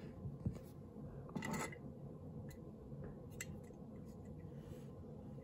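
Faint handling noises of a brass HO-scale model locomotive tender being picked up and turned over in the hand: a soft knock about half a second in, a short rub a little later, and a few light ticks.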